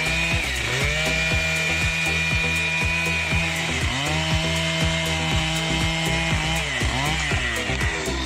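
Two-stroke chainsaw running near full throttle while cutting through wood. Its pitch sags and recovers about half a second in, about four seconds in and near seven seconds, as the chain bites under load.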